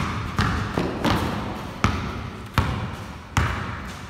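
A basketball being dribbled on a concrete floor, bouncing about six times at a steady pace, each bounce echoing in the large hall.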